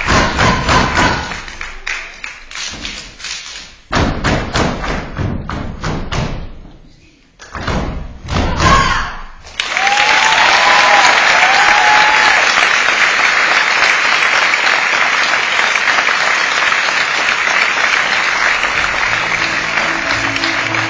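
A run of sharp thumps and claps, then an audience applauding steadily from about ten seconds in, with a brief whistle or call above the clapping.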